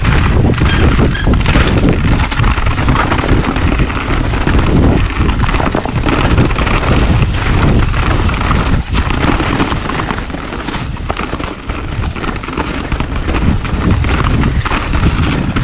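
Wind rumbling on the microphone of a mountain bike riding fast downhill, with the clatter of its tyres and frame over rocks and dry leaves.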